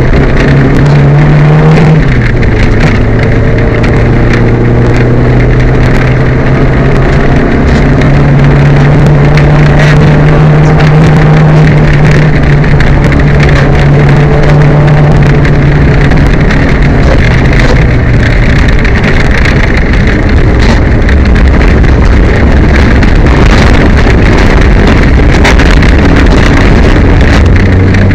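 Peugeot 205 rally car's engine running hard on a stage, heard from inside the cabin over road and wind noise. The engine note holds fairly level, stepping down and back up in pitch a few times. The engine is misfiring.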